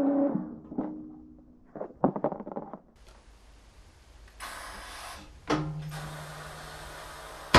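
Knocks, clatter and scraping of perforated lid boards being set and slid onto a fireworks press mold, ending in a sharp loud knock. The tail of background music fades at the start, and a low steady tone sounds through the second half.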